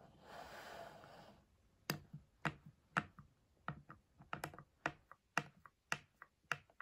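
Fingers handling the small plastic buffer sachet and extraction tube of a COVID-19 lateral flow test kit: a soft hiss lasting about a second and a half, then light, irregular plastic clicks and taps, one or two a second.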